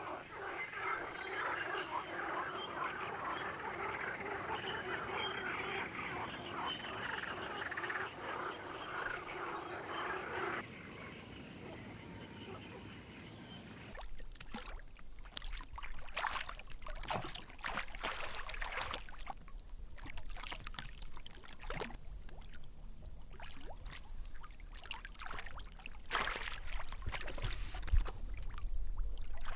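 A dense chorus of frogs croaking, which fades about ten seconds in. After a cut, water splashes and drips as a Eurasian otter swims and feeds at the surface, over a low steady rumble, with one louder splash near the end.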